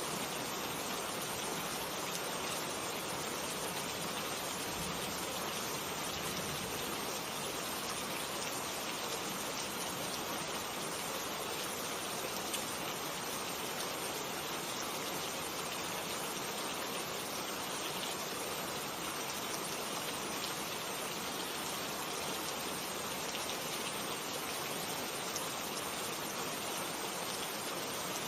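Steady rainfall: an even, unbroken hiss of rain with no thunder.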